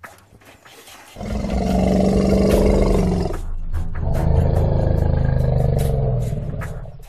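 Two long, deep animal roars, the second beginning just under a second after the first ends.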